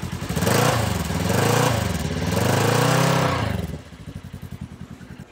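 An engine revving up and back down several times, then dropping to a quieter, pulsing idle about four seconds in.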